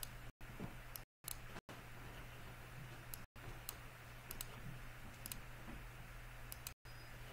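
Computer mouse clicking a handful of times, single sharp clicks a second or so apart, over a faint steady hum and room noise that cuts out briefly several times.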